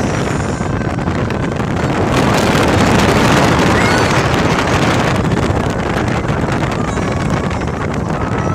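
Motorboat under way at speed, its engine and hull noise mixed with wind buffeting the microphone in a steady, dense rush.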